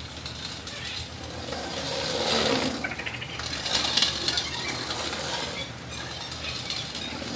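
Electric-longboard-powered go-kart rolling over brick paving: a noisy rolling sound of its small wheels that grows louder about two seconds in and eases off after about five seconds.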